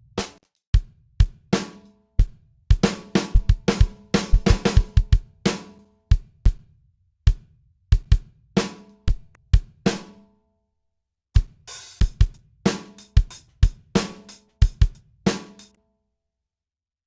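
A drum kit track plays back: a groove of kick and snare hits with cymbals over them. It stops for about a second around ten seconds in, then resumes and stops again near the end.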